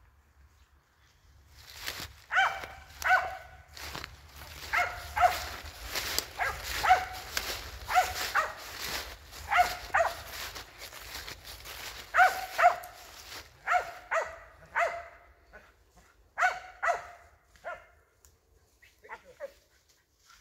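Squirrel dog barking in short runs of two or three sharp barks, starting about two seconds in and stopping a couple of seconds before the end.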